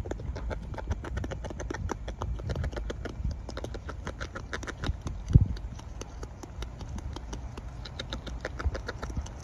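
Beaver chewing a leaf held in its forepaws: a fast, irregular run of crisp crunching clicks from its teeth. One louder low thump about five seconds in.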